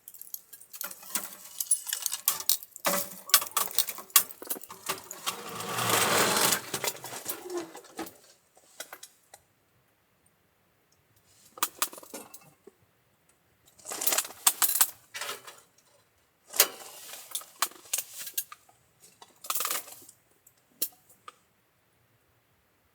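Bursts of small metallic clinks and rattles, handling of metal objects, in several clusters with quiet gaps, the densest and longest about six seconds in.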